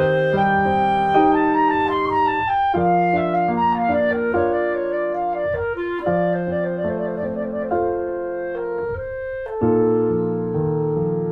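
Instrumental music: a piano with a woodwind melody, which plays a trill about two-thirds of the way through, breaks off briefly near the end, and then comes back on a held chord.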